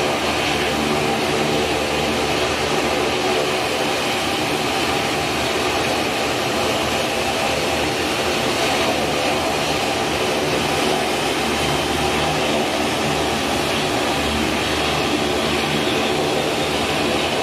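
Fokker 50's turboprop engines running steadily with their propellers turning, just after start-up: an even drone of several steady tones over a constant rushing noise.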